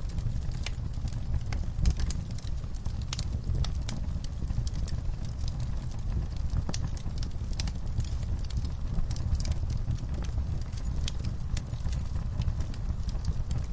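Open fire burning, with irregular sharp crackles and pops over a steady low rumble of the flames.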